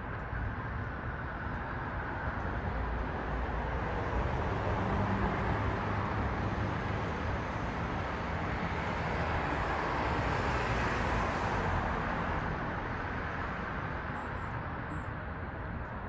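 Steady street traffic noise that swells as a vehicle passes in the middle and then fades back, with a couple of short high chirps near the end.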